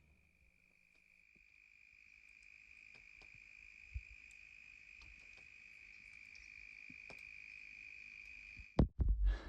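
A cricket-like insect trilling as one continuous high note that slowly grows louder, with faint scattered ticks. Near the end come a couple of loud, short knocks.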